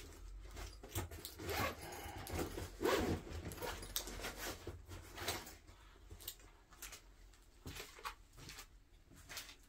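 Irregular clicks and rustling from hands fitting a battery into a handheld device, with a louder burst of handling noise about three seconds in.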